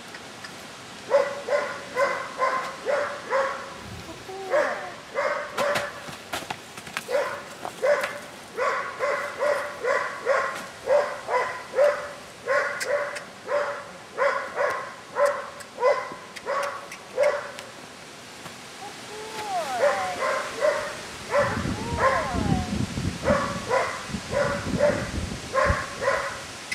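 A dog barking over and over in short, sharp barks, about two a second, with a break of about two seconds about two-thirds of the way through.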